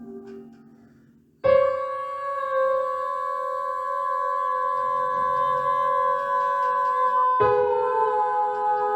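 Experimental ambient music: after a fading tone and a short hush, a chord enters suddenly about a second and a half in and holds steady, then a new held chord enters suddenly near the end.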